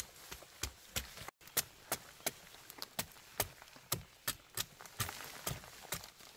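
A run of sharp, irregular knocks, about three a second, with a brief total dropout a little over a second in.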